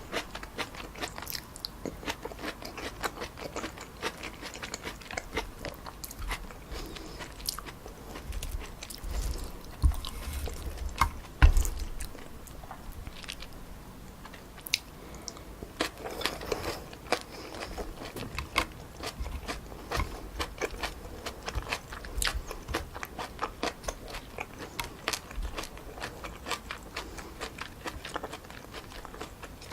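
Close-miked eating of chewy stir-fried wide glass noodles with pork and vegetables: a run of wet chewing clicks and mouth smacks, with a louder low thump about a third of the way in.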